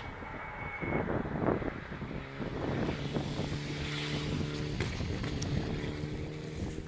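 An engine running at a steady, unchanging pitch, starting about two seconds in and holding until just before the end, over gusty wind noise on the microphone.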